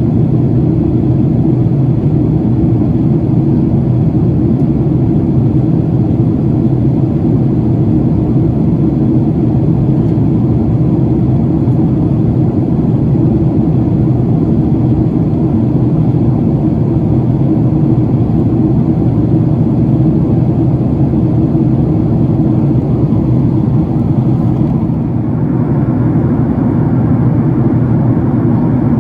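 Steady jet airliner cabin noise: the deep roar of the engines and airflow heard from inside the cabin. About 25 seconds in, the higher hiss thins out while the low roar carries on.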